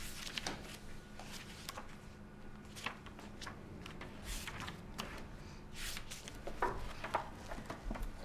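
Pages of a thick book being flipped through: a run of quick paper rustles and flicks, with a faint steady low hum underneath.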